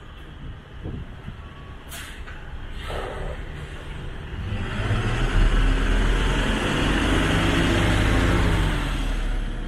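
A bus pulling in to the stop. Its engine grows louder from about halfway through and runs loud for several seconds, then eases off near the end.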